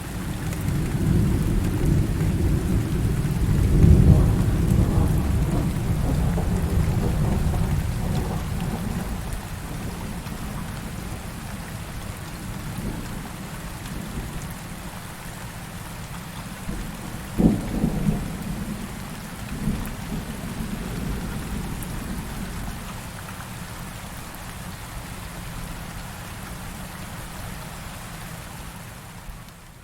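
Heavy rain with rolling thunder: a long low rumble swells and peaks about four seconds in, then fades slowly, and about halfway through two shorter, sharper thunderclaps sound over the steady downpour.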